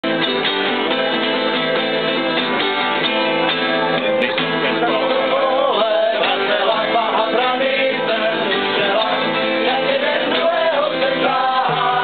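Acoustic guitars playing chords, with a voice singing a wavering melody from about five seconds in.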